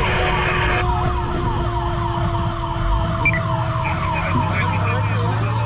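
Fire truck's electronic siren on a fast yelp, about four sweeps a second, over the truck's running engine while responding to a fire alarm.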